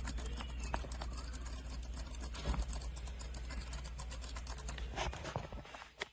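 Rapid, irregular clicking of keys on a gaming keypad being pressed over and over, over a steady low hum; it stops abruptly near the end.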